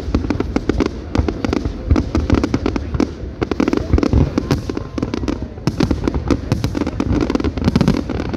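Fireworks display: a continuous barrage of rapid, overlapping bangs and crackles from aerial fireworks.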